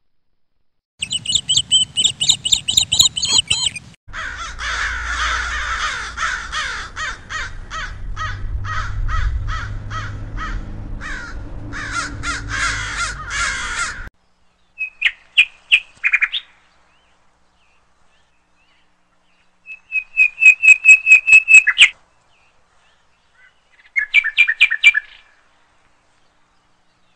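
A crow held down by a hawk gives harsh, rapidly repeated distress caws. The calls come in a long bout of about a dozen seconds, then in shorter bursts with quiet gaps between.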